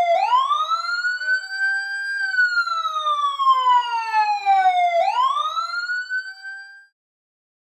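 Siren-like sound effect for a logo intro: one pitched tone that sweeps up over about two seconds, slides slowly back down, then sweeps up again and stops about seven seconds in.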